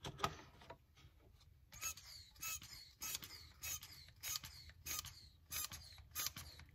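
Hand-operated vacuum pump being squeezed in a steady rhythm, about eight short sharp strokes roughly two-thirds of a second apart. It is pulling a vacuum on the bleeder nipple to draw hydraulic fluid and air out of a Lamborghini Gallardo's e-gear system. A single knock sounds just after the start.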